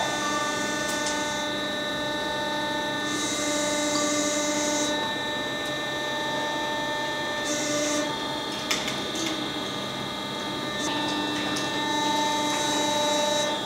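Steady hum of several pitches from a tilting melting furnace while it pours molten bronze into a mould, with patches of high hiss coming and going and a few light clicks.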